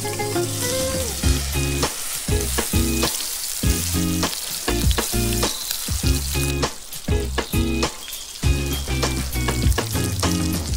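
Raw beef burger patties sizzling as they fry in hot oil in a nonstick frying pan, with a steady hiss throughout. Background music with a beat plays over it.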